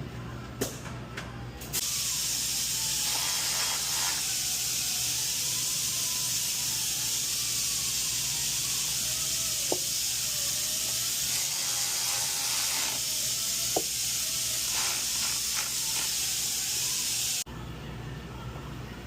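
A loud, steady hiss that starts suddenly about two seconds in and cuts off abruptly near the end, with a few faint clicks.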